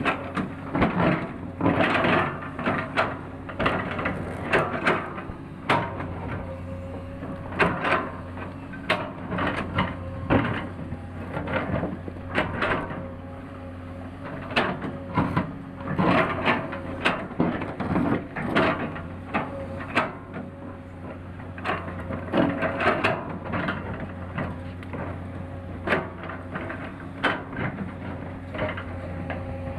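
Excavator at work: its engine running steadily while irregular clanks, knocks and creaks come from the arm, bucket and tracks.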